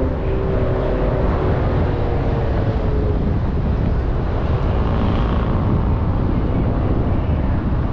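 Car driving along a city street: a steady low rumble of engine and road noise. An engine tone drops slightly in pitch and fades out over the first three seconds.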